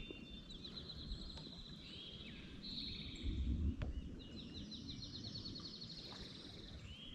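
A songbird singing a fast, high trill of rapidly repeated notes, twice, with a brief low rumble between the two songs.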